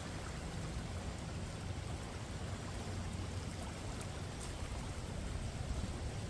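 Steady rushing of a flood-swollen creek flowing fast around a fallen log and drowned trees.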